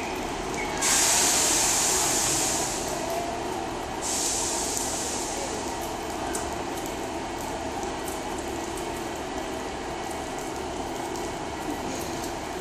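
Class 150 diesel multiple unit idling at the platform with a steady engine hum, and two loud hisses of compressed air from its brakes: the first starts suddenly about a second in and lasts about three seconds, the second starts about four seconds in and fades away slowly. The train is readying to depart.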